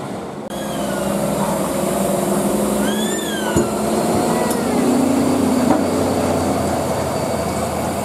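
Heavy Hino trucks running down a steep grade, their engines making a steady hum, with high squeals that rise and fall in pitch twice.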